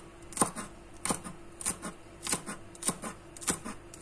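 Kitchen knife chopping green onions on a cutting board: a steady rhythm of knocks as the blade meets the board, about six strokes, a little over half a second apart.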